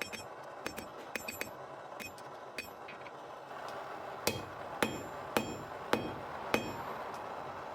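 Small hammer striking metal, each blow leaving a short bright ring, as in hand-forging jewellery. A few light taps come first, then five heavier blows about half a second apart in the second half, over a steady background hiss.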